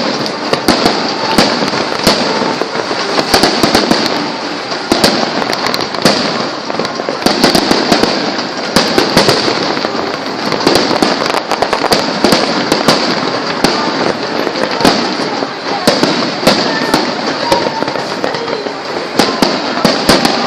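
Fireworks and firecrackers going off without pause: many sharp bangs at irregular intervals over a steady, dense crackling hiss.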